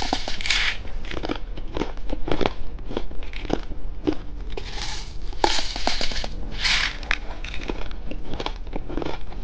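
Plastic candy packaging crinkling and rustling as it is handled, with many small clicks and taps.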